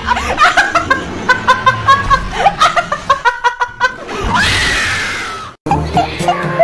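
People laughing in short bursts, then a long scream with a rising-then-falling pitch about four seconds in, ending abruptly.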